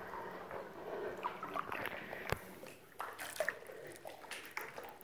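Water sloshing and dripping in a cenote cave, irregular small splashes and drips, with one sharp tap a little over two seconds in.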